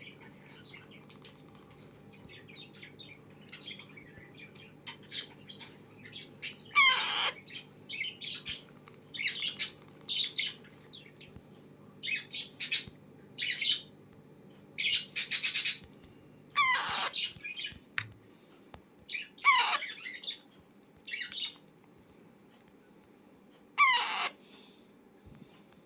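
Alexandrine parakeet chick giving repeated harsh food-begging squawks while being fed, with many short chirps between about six loud calls that fall in pitch. A steady low hum underneath stops about two-thirds of the way through.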